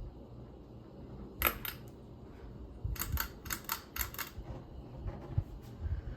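Hunter Brighton ceiling fan running with a low steady hum. A short cluster of sharp clicks comes about a second and a half in, then a quick run of about six clicks a second or so later.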